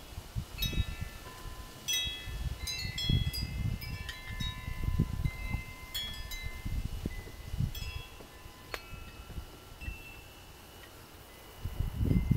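Wind chimes ringing irregularly: clusters of struck metal tones at several pitches, each ringing on, with quieter stretches between. A low rumble rises and falls underneath.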